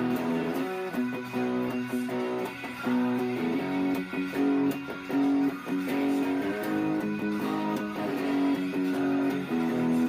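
Electric guitar played through a Bogner Uberschall amplifier, a run of picked notes and chords changing quickly over a held low note.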